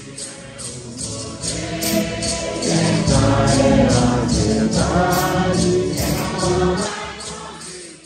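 A congregation sings a Santo Daime hymn in unison, many voices together, over the steady beat of many maracas shaken in time. The singing swells about three seconds in and eases off near the end.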